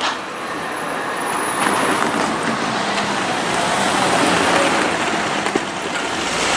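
Street traffic: cars driving past across the tram tracks, a steady noise of tyres and engines.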